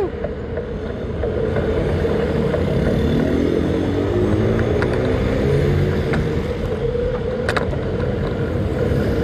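Street traffic from a bicycle riding along a city road: a steady low rumble and noise of passing vehicles. From about two and a half seconds in, a vehicle engine revs up in rising steps, and there is one short click near the end.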